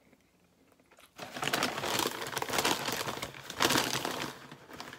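A McDonald's paper takeout bag rustling and crinkling as it is handled and searched through, starting about a second in.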